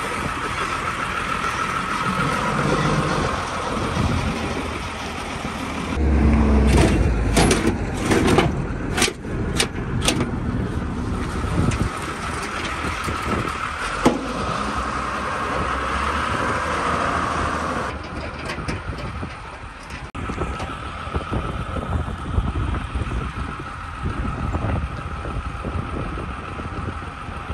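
A vehicle engine running steadily, with a burst of loud knocks and metal clanks about six to ten seconds in and a single sharp click a few seconds later.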